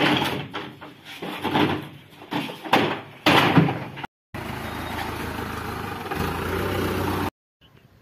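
Plastic produce crates knocked and slid onto the wooden bed of a truck as they are loaded and stacked, an irregular run of loud clattering knocks. After a brief break, a steady, even noise runs for about three seconds and stops suddenly.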